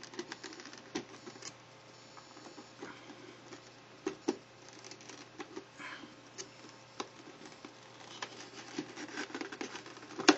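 Fingers picking at tape and working a tight cardboard box open: scattered light scratches, taps and clicks on the cardboard, with a louder rustle right at the end.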